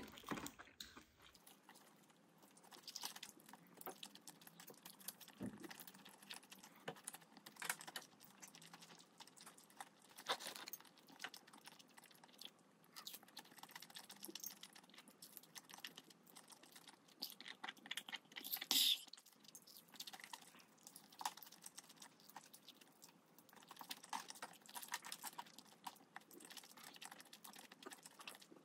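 Close-miked eating sounds: chewing on chicken, with many small sharp clicks from the mouth. One louder click comes a little past halfway.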